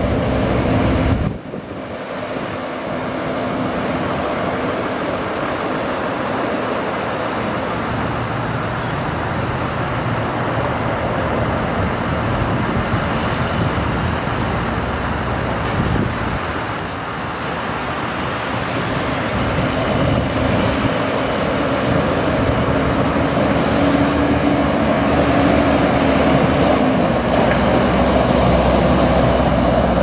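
John Deere 310J backhoe's 4045DT four-cylinder turbo-diesel running as the machine drives, a steady engine drone. The level drops suddenly about a second and a half in, and the engine tone strengthens slightly a little past two-thirds of the way through.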